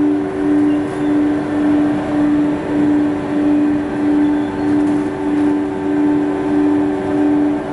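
Textile waste tearing machine running, a steady mechanical drone with a strong low hum whose loudness swells and fades about one and a half times a second.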